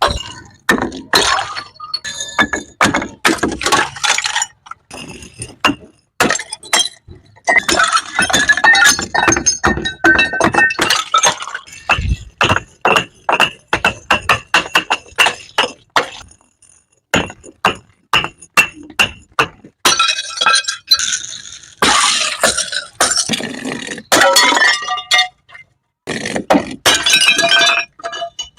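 Glass bottles hitting stairs and shattering: many hard knocks, several crashes of breaking glass, and shards clinking and ringing as they scatter, with a brief pause in between.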